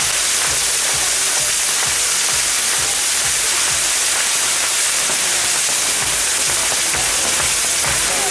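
Mechanical firework wheel spinning, its rows of spark fountains giving a loud, steady hiss with no let-up.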